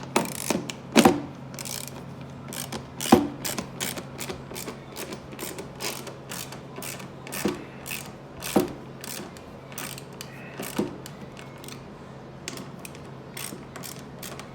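3/8-inch-drive Pittsburgh hand ratchet clicking in quick runs as chair bolts are tightened, with a few louder knocks among the clicks.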